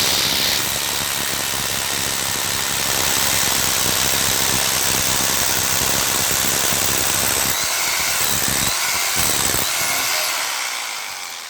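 Electric rotary hammer (concrete drill) motor running steadily with its carbon brushes sparking, then fading as it winds down near the end.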